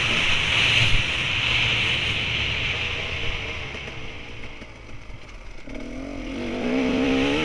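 Dirt bike engine running under way, heard from a camera mounted on the bike along with wind rush. Past the middle the engine drops away as the throttle eases off, then near the end it picks up again, the pitch climbing as the bike accelerates.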